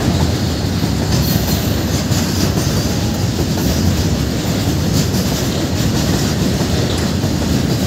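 Open-top steel freight wagons rolling past at close range: a loud, steady rumble and rattle of wheels on rails, with faint repeated wheel clicks.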